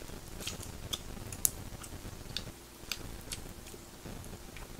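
Pork belly cooking on an electric grill pan, the fat popping and crackling in scattered sharp ticks, with one louder pop about a second and a half in.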